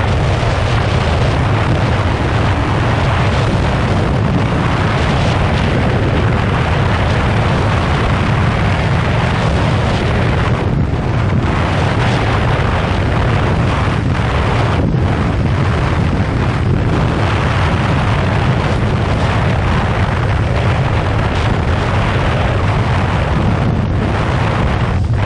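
Heavy wind noise rushing over the microphone of a motorcycle ridden at speed, over the steady running of a 2015 Yamaha FZ6R's inline-four engine.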